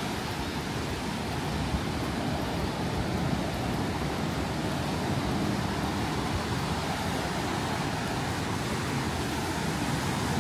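Steady, even outdoor rushing noise with no distinct events, of the kind made by surf, wind or distant traffic.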